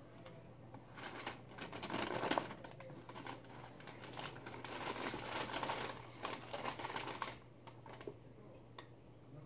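Tissue paper rustling and crinkling as it is unfolded and pulled back out of a shoebox, in irregular crackly handling noises, loudest about two seconds in and fading out a couple of seconds before the end.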